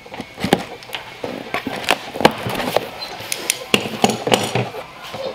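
A taped cardboard box being slit open with a box cutter and its flaps pulled back: an irregular run of sharp cardboard cracks, scrapes and knocks.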